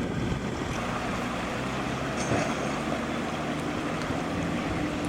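A motor vehicle's engine running steadily under a continuous rumble of road and wind noise.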